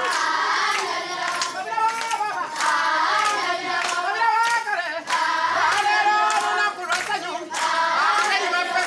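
A group of girls sings a traditional Kiganda song together, with hand clapping.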